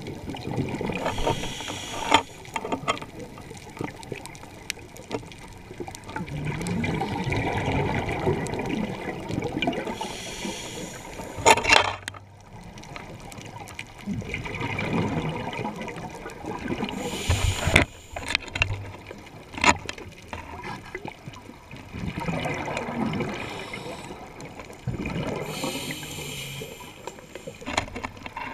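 Scuba regulator breathing heard underwater: long bubbling rushes of exhaled air alternate with short hissing inhalations, about three breaths, roughly every eight seconds. A few sharp clicks come between them.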